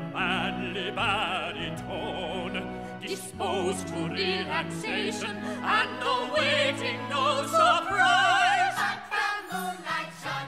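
A musical-theatre cast recording: operatic singing with a wide vibrato over an orchestra's sustained bass notes, and higher held notes in the last few seconds.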